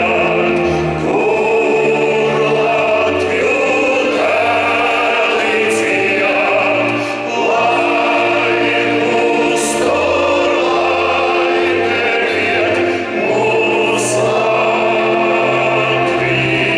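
Choral and orchestral music in an operatic style, a choir holding long chords over the orchestra, played loud over an arena's sound system. Bright crashes come about every four seconds.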